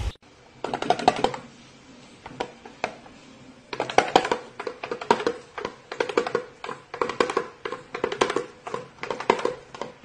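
Light, quick taps on the head of a small red toy drum, made by a cockatiel perched on it. The taps come in irregular clusters from about half a second in.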